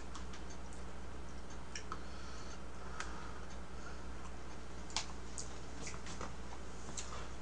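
Eating sounds: scattered soft clicks of a spoon against plastic food containers and mouth sounds of eating mung bean porridge, the sharpest click about five seconds in, over a steady low hum.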